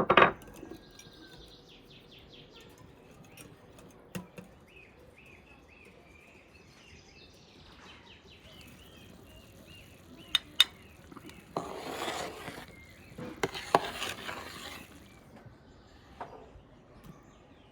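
Cookware and utensils clattering and scraping: a sharp clank at the start, a few clicks, then two longer stretches of scraping or stirring about two-thirds of the way through.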